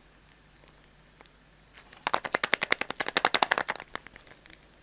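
Foil-wrapped chocolate surprise egg being handled in the fingers: a fast run of crisp crackling clicks, about a dozen a second, lasting about two seconds.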